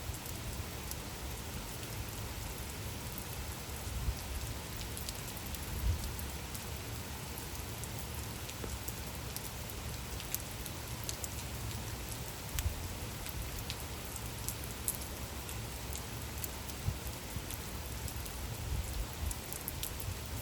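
Steady gentle rain falling, with individual drops ticking irregularly over an even hiss and a low rumble.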